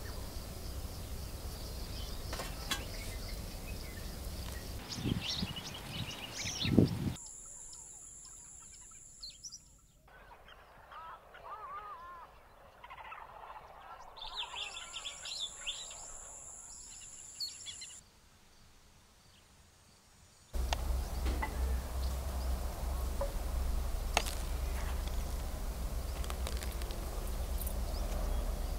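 Low wind rumble with a loud thump about seven seconds in. Then, for about thirteen seconds, birds chirping and calling over a steady high-pitched buzz. Then the wind rumble returns, with a metal spoon clinking in a steel bowl near the end.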